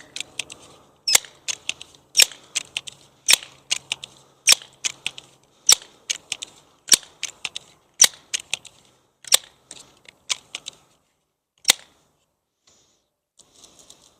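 Pellet pistol firing about ten shots in steady succession, roughly one a second, each sharp crack followed by a few fainter clicks. The shots stop about twelve seconds in.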